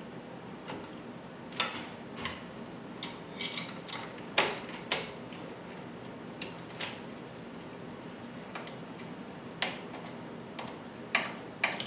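A dozen or so irregular small clicks and knocks of parts and a tool being handled while assembling a small aluminium-framed device, over a steady low hum.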